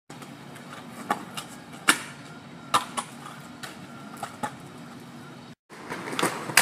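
Stunt scooter rolling on rough pavement: a steady rumble with scattered sharp clicks and knocks. The sound breaks off about five and a half seconds in, followed by louder clacks of scooter wheels and decks on skatepark concrete.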